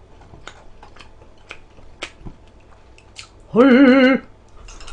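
Faint eating clicks, then about three and a half seconds in a loud, warbling alert jingle of well under a second: the AfreecaTV star-balloon gift alert for a 500-balloon donation.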